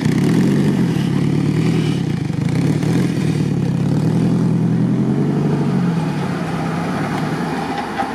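Off-road vehicle's engine running hard at high revs while stuck in swamp mud, its pitch wavering as the driver works the throttle, then easing off near the end.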